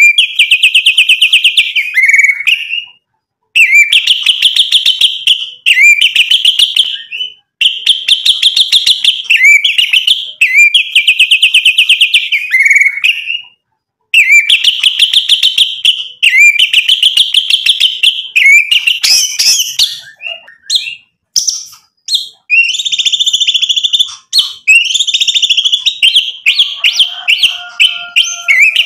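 White-rumped shama singing: fast rattling trills in phrases of about two seconds, repeated with short pauses, turning to more varied and higher-pitched notes in the second half.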